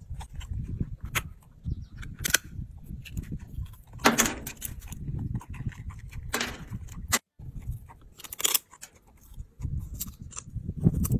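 Macaque cracking a walnut shell with its teeth: a series of sharp cracks and crunches, loudest about four and six and a half seconds in, over a low rumble.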